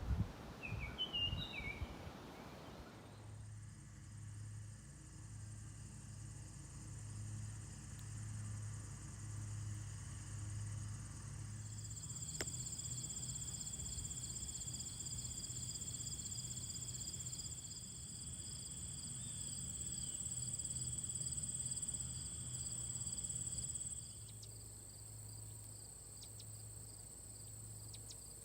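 Insects, crickets or similar, trilling in a steady high-pitched chorus over a low pulsing hum, after a few brief bird chirps at the start. The trilling grows louder for a stretch in the middle.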